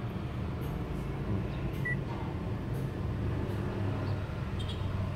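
Low steady hum inside a car's cabin, with one short electronic beep about two seconds in and a few faint clicks near the end.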